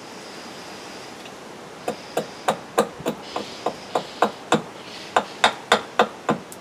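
Gränsfors Bruks mini hatchet making a quick run of short chopping cuts into a small wooden stick, cutting a guy-line notch into a tent peg: about fifteen sharp knocks, roughly three a second, beginning about two seconds in, with a brief pause before the last few.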